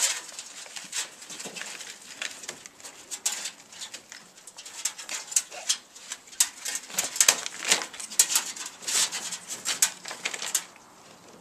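A dog sniffing and snuffling in quick, irregular bursts at a pile of firewood, with scrabbling and rustling of wood and a plastic tarp, as it searches for a wood rat hidden in the pile.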